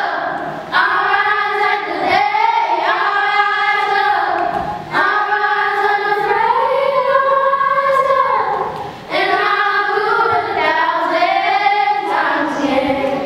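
A girl singing a slow song into a microphone, holding long notes in phrases a few seconds long, with short breaths between them.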